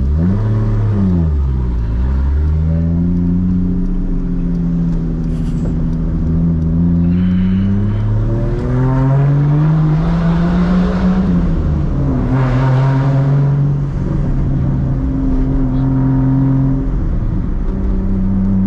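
Straight-piped MKIV Toyota Supra's 2JZ straight-six, heard from inside the cabin, pulling through the gears. The engine note climbs, drops sharply at each upshift, and holds steady while cruising.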